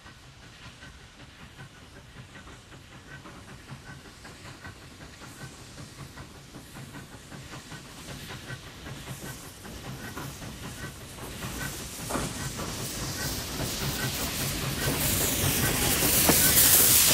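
Victorian Railways K-class 2-8-0 steam locomotive working a train toward the listener: a regular chuffing beat that grows steadily louder as it nears, then a loud hiss of steam from the open cylinder drain cocks as it passes close by in the last few seconds.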